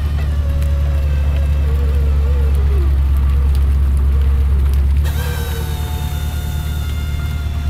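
A purse seiner's engine and deck hydraulics running with a steady low drone, with a wavering whine over it in the first few seconds.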